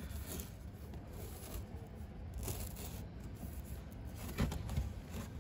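Light rustling and handling noises as a hand moves about the cats' plastic shelter and blanket, with a couple of soft knocks about four and a half seconds in.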